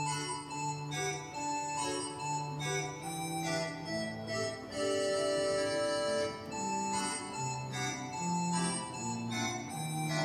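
Church pipe organ playing an improvisation on Christmas melodies: held chords over a pedal bass line that moves from note to note.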